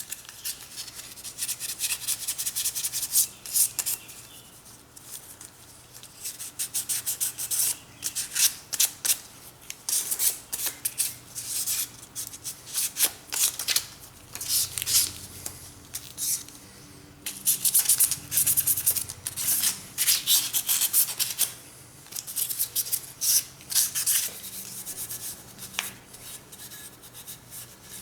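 Sandpaper scuffing a bare metal Glock slide by hand, roughing up the surface so the coating will stick: quick runs of hissing back-and-forth strokes with short pauses between them.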